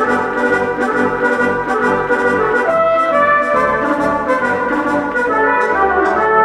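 Background music led by brass, with trumpet-like held notes over a steady beat.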